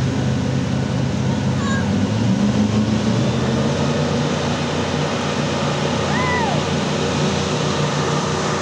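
Tour jet boat's engine running steadily at speed as it passes, over the rush of its water jet and spray. About six seconds in, a short rising-and-falling whistle-like call sounds over it.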